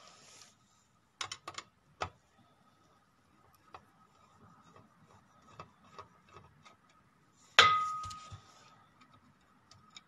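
Small clicks and taps of a screwdriver working at a wire terminal screw inside a sheet-metal machine housing, with one sharp metallic clank about seven and a half seconds in that rings briefly. A faint steady high tone sits underneath.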